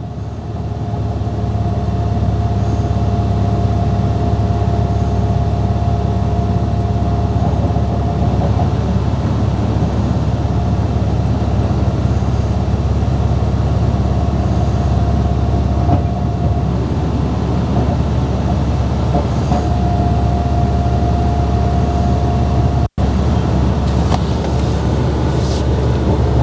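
One-ton dump truck running steadily while its bed is tipped to unload gravel: a low drone that swells up about a second in, with a steady whine over it for the first third and again near the end. The sound drops out for an instant near the end.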